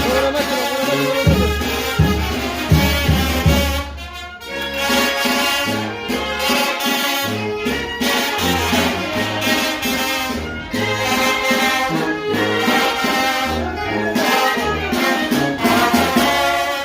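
A Mexican brass band (banda de viento) playing live: trumpets, trombones and saxophones over repeated low bass notes, with a short dip in loudness about four seconds in.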